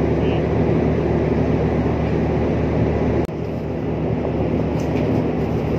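Steady low drone of a ship's machinery on deck, a continuous hum with a noisy rumble over it, cutting out for an instant about three seconds in before carrying on.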